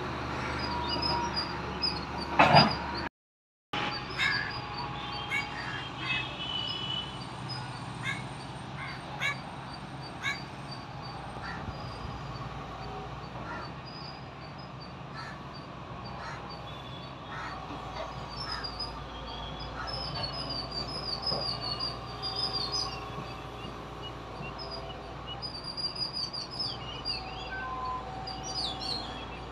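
Birds chirping and crows cawing over a steady outdoor background noise, with scattered sharp knocks. The sound cuts out for about half a second around three seconds in.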